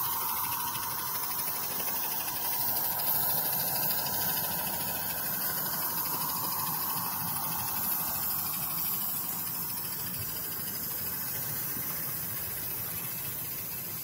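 Small live-steam garden-railway saddle-tank locomotive hissing steadily as it runs past with its wagons, growing fainter in the second half as it moves away.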